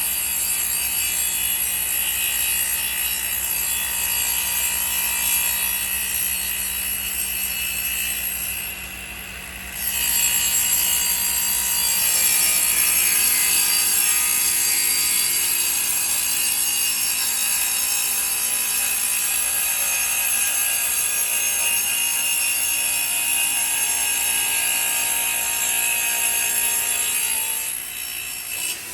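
CNC router spindle running with its cutter surfacing a granadillo hardwood slab, taking off the tear-out left by the planer. The cutting eases briefly about a third of the way in, then resumes louder and steady before dropping off near the end.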